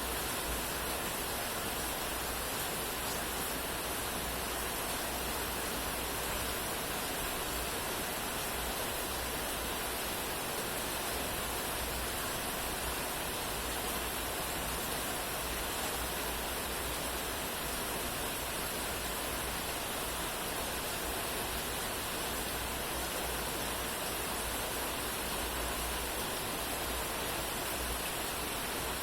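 Steady rain: an even, unbroken hiss with no single drops or thunder standing out.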